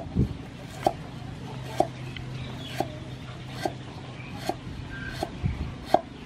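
Cleaver slicing lemongrass stalks on a thick round wooden chopping board: a sharp knock about once a second, eight strokes in all.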